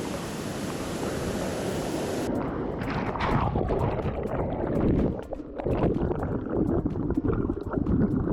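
Waterfall water rushing over a smooth rock slab into a pool, a steady rush. About two seconds in the sound changes abruptly to a rougher, louder rush with crackles, dipping briefly near five seconds.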